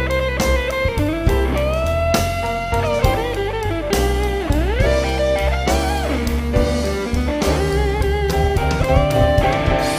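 Instrumental stretch of a blues-rock song: an electric guitar plays a lead line with bent, sliding notes over bass and drums.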